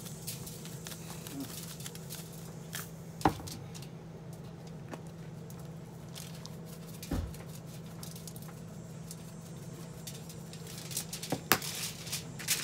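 Salt and then pepper shaken from shakers over a whole fish on aluminium foil: faint pattering of grains, with a few isolated sharp clicks, over a steady low hum.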